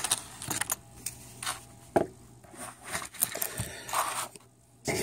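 Handling noise from a Glock 30 pistol being worked out of a leather holster and set down on a wooden table: a series of short scrapes, rubs and knocks, the sharpest knock about two seconds in.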